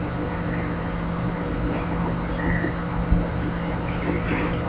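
Steady low hum and hiss of background noise, with one brief low thump about three seconds in.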